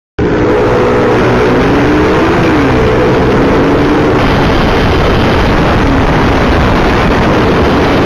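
Motorcycle engine running at speed under a heavy rush of wind and road noise on the microphone of a camera riding along; the engine's pitch rises and falls over the first few seconds, then the wind rush covers it.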